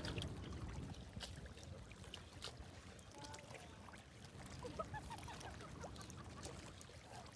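Faint seawater lapping against the rocks of a seawall, with a few faint short calls about three seconds in and again around the five-second mark.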